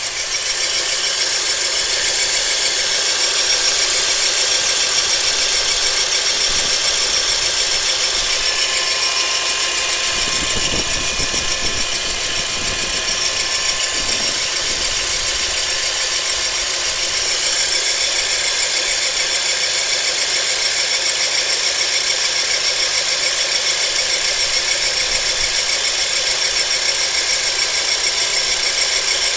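Honda K24A3 2.4-litre four-cylinder engine running steadily, with a strange steady high-pitched noise over it that the owner suspects is the drive belt or the water pump. A brief low rumble comes about ten seconds in.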